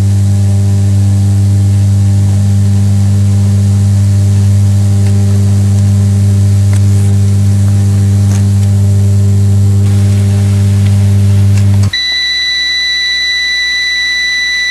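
Fax machine feeding out a received page with a loud, steady low buzz, which cuts off abruptly near the end and gives way to a single long, high beep.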